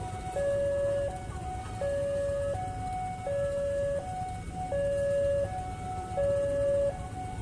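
Railway level-crossing warning alarm sounding its two-tone signal, a low tone and a higher tone alternating about every three-quarters of a second. Under it a passenger train runs past over the crossing with a low, steady rumble of wheels on rail.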